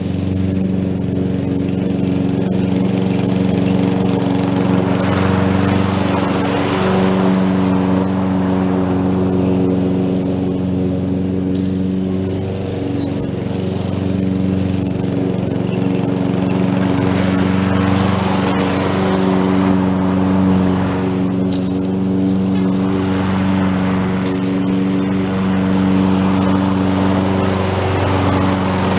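Petrol lawn mower engine running steadily at working speed, with a rushing noise that swells and fades every several seconds as it mows.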